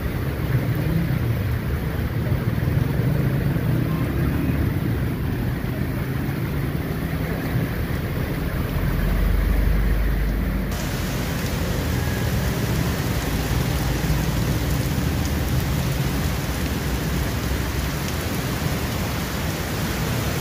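Heavy monsoon rain falling on a flooded street while traffic passes: the hum of auto-rickshaw and motorcycle engines and tyres swishing through standing water under a steady rain hiss. A deep rumble swells briefly about halfway through, and soon after the hiss turns suddenly brighter.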